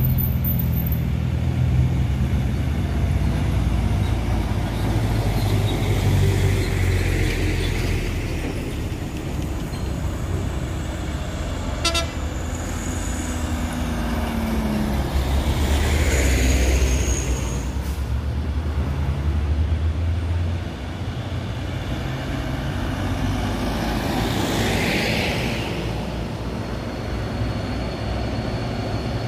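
Mitsubishi Fuso dump truck's diesel engine labouring on a steep climb with a deep, steady rumble that eases about two-thirds of the way through. Short hissing bursts come from the traffic around it.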